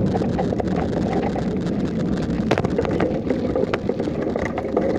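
Wind buffeting the microphone of a camera carried on a moving bicycle, a dense steady low rumble, with two sharp clicks a little over a second apart midway.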